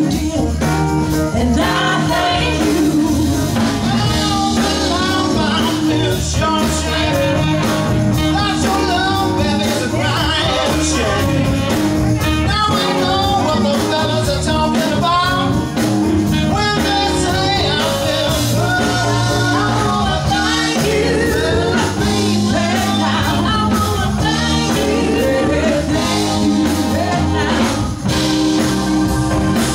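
Live band playing a song: a woman's lead vocal over electric guitar, bass guitar and drums.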